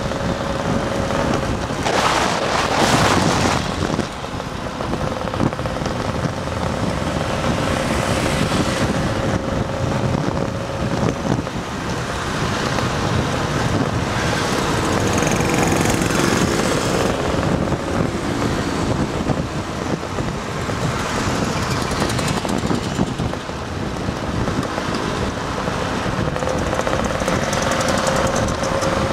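Scooter engines running steadily at cruising speed, heard from on board a Vespa in a group ride, with a steady engine drone under heavy wind noise on the microphone and a louder gust of wind about two to three seconds in.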